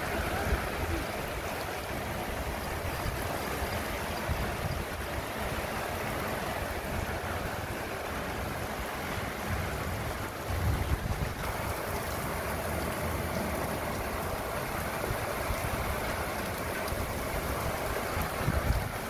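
Heavy rain pouring down in a steady rushing hiss, with gusts of wind buffeting the phone's microphone in low rumbles now and then.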